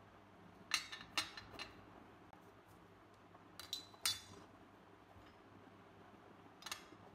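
Steel pistol parts, a Beretta M1934's slide and magazine, set down in a glass baking dish and clinking against the glass. The clinks come in three short clusters: about a second in, around four seconds, and once near the end.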